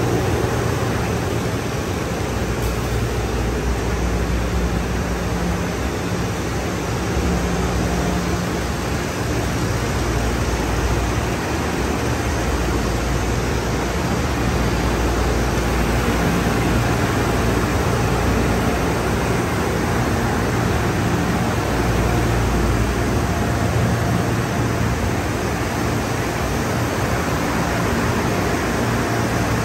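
Conveyor car wash tunnel equipment running: a steady rush of water spray and spinning cloth wrap brushes over a low, even machine hum.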